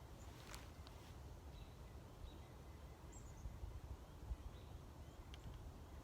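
Quiet outdoor background with a low rumble, a few faint, short, high chirps from small birds, and a sharp click about half a second in.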